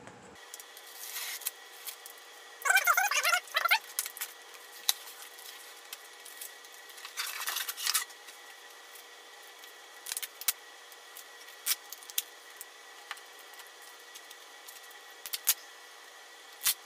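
A mail package being opened by hand: three bursts of cutting, tearing and crinkling of the wrapping in the first eight seconds, then scattered light clicks and taps as the contents are handled.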